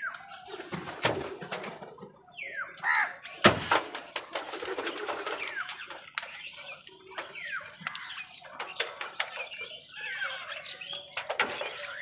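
House crows calling now and then while they feed, with many sharp taps of beaks pecking grain from a plastic bowl and the concrete. One loud knock about three and a half seconds in.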